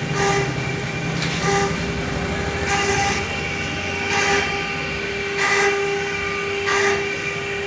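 CNC stone router spindle running with a steady high whine while its bit cuts into a stone slab. A louder hissing grind recurs about every 1.3 seconds.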